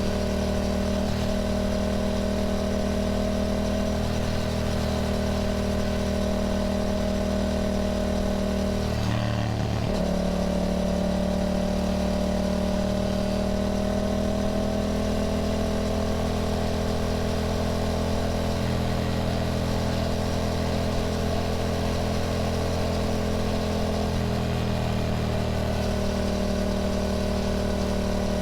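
Yamaha motorcycle engine running steadily under way, its pitch drifting only slightly, with a brief dip and recovery in pitch about nine to ten seconds in.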